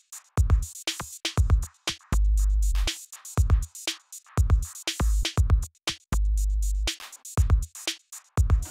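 Background music: a drum-machine beat with kick, snare and hi-hat, and sustained bass notes.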